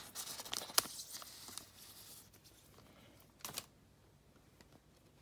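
Plastic packaging crinkling around an oversized trading card as it is handled, with a sharp click about a second in and a brief rustle near the middle.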